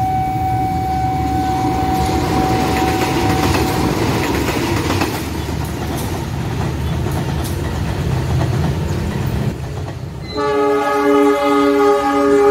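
GE CC201 diesel-electric locomotives passing with engine rumble and wheel-on-rail noise. A steady single warning tone sounds early on and stops a few seconds in. Near the end a locomotive horn blows close by in several short, loud chord blasts.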